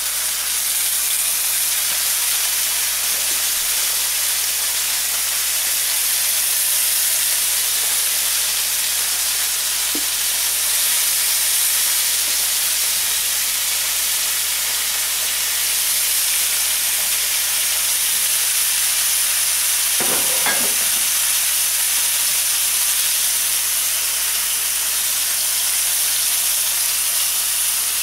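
Chicken pieces searing skin-side down in a very hot oiled pan, sizzling steadily as the skin browns.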